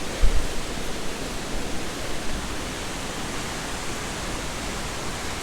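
Steady, even rush of river water and waterfalls, with a couple of low bumps just after the start.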